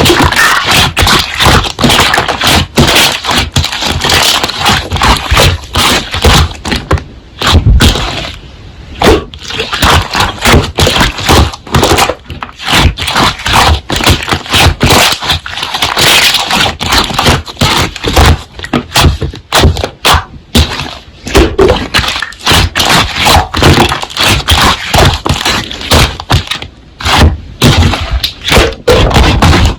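Slime being squeezed, pressed and stretched by hand: a dense, continuous run of clicking and popping crackles.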